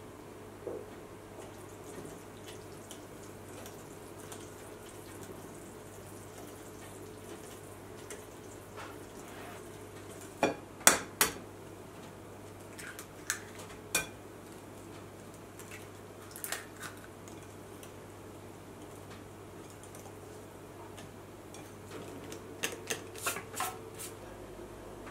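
Sharp clinks and taps of a metal wire whisk and utensils against a glass mixing bowl, coming in scattered groups over a faint steady hum. The loudest is a quick run of three about ten seconds in, with another cluster near the end.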